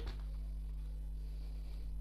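Steady low hum under faint room tone, with no distinct event.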